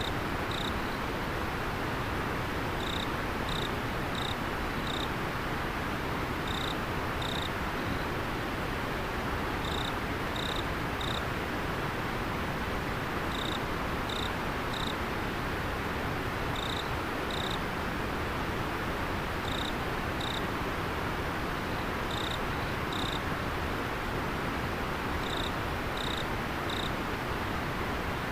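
River water flowing steadily, with an insect chirping over it in short clusters of two to four high notes every few seconds.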